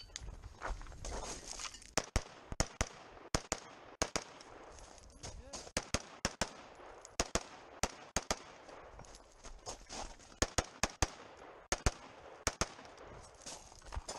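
Semi-automatic rifle fired rapidly: strings of quick shots with short pauses between them, over two dozen shots in all.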